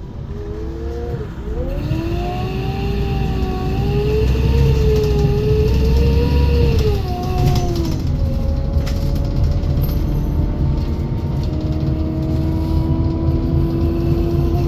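Menarinibus Citymood 12 CNG city bus heard from aboard while under way: the FPT Cursor 9 engine's low rumble with a pitched driveline whine that falls, climbs again about a second and a half in, wavers, drops around seven to eight seconds in, then rises slowly as the bus pulls away.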